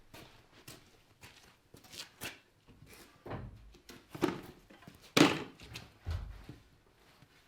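Irregular knocks and thuds of wooden wall framing being handled and set in place, the loudest about five seconds in.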